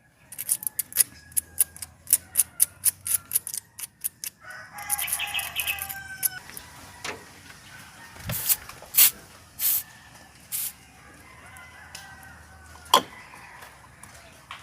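A rooster crowing once, about five seconds in. Around it, a rapid run of sharp clicks and knocks fills the first four seconds, with more scattered clicks later.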